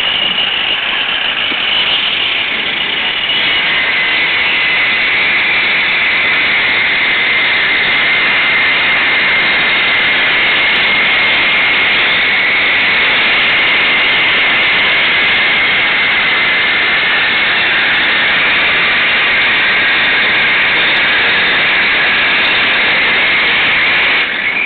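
Loud, steady machine noise with a faint high whine running through it, rising slightly about three seconds in and then holding without a break.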